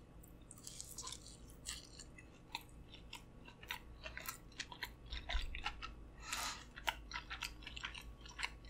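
Close-miked chewing of Flamin' Hot Cheeto-coated corn on the cob dipped in Alfredo sauce: many short, crisp crunches and clicks, with a brief louder rustling crunch a little past the middle.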